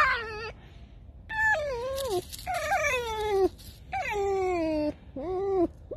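Tame red fox vocalizing with its mouth open: a short sharp cry, then four long squeaky whines that fall in pitch. It is calling to be petted.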